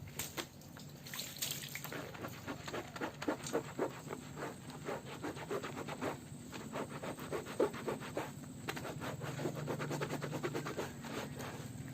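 Hand rubbing and scraping on jersey material: an irregular run of quick scratchy clicks for most of the time, easing into a steadier rubbing hiss near the end.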